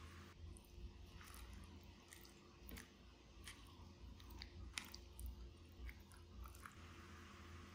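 Person quietly chewing a mouthful of penne pasta in tomato sauce, with small irregular clicks of mouth and eating sounds.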